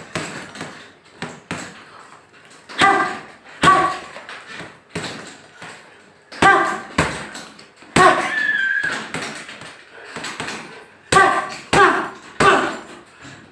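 Boxing gloves punching a hanging heavy bag: a series of hard, sharp hits in bursts of one to three, with shorter pauses between the combinations.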